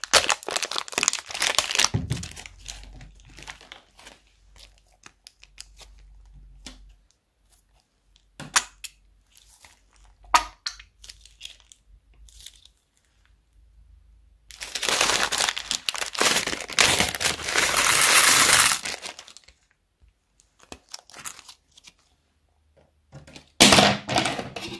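Thin plastic bags of slime crinkling and tearing in the hands as they are opened and squeezed out, in bursts: at the start, a long loud stretch in the middle, and a short burst near the end, with quieter scattered crinkles between.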